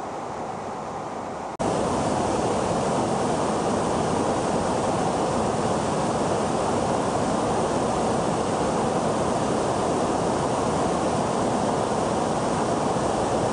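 Steady rushing noise of airflow and jet engines, recorded aboard an aircraft in flight, stepping up to a louder level all at once about one and a half seconds in.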